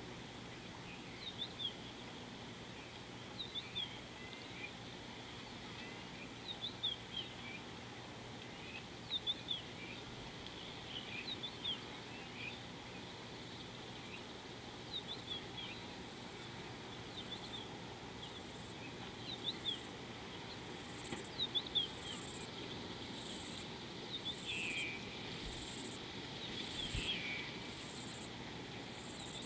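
Small birds giving short, high chirps in little clusters, joined about halfway through by an insect's high-pitched pulsing call, about three pulses every two seconds, which grows louder until it is the loudest sound.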